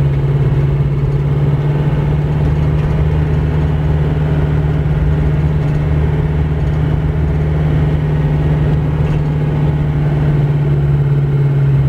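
Isuzu Panther's engine running steadily while driving, heard from inside the cabin as an even, low hum with no change in revs. The car is carrying about 500 kg of rice with the AC on.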